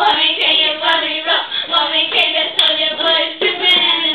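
Voices singing loudly in short held notes, with a few sharp claps or slaps scattered through.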